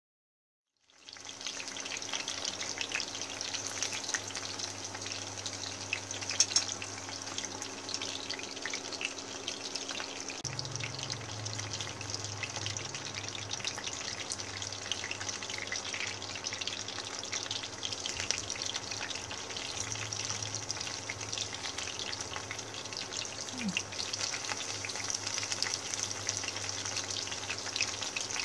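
Wild betel leaf (lá lốt) rolls sizzling and crackling in a pan of hot oil over low-medium heat, starting about a second in, with one sharp pop and a faint low hum underneath.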